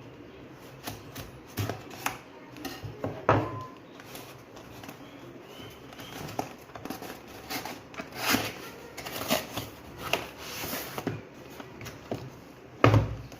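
Hands handling a delivery parcel and its packaging: scattered taps, knocks and rustles, with a louder thump near the end.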